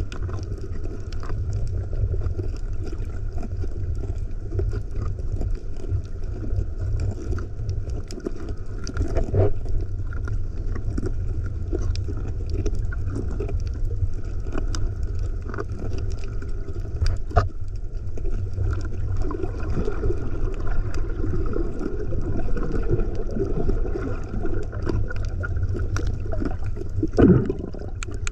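Muffled water noise picked up by a camera held underwater: a steady low rumble with gurgles and scattered small clicks, and one louder knock near the end.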